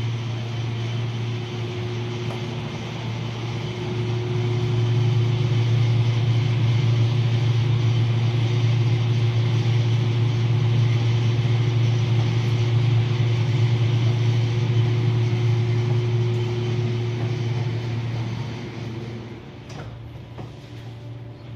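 Steady mechanical hum of a ship's walk-in cold room evaporator fan unit running, with a faint steady tone over a low drone. It grows louder a few seconds in and fades near the end.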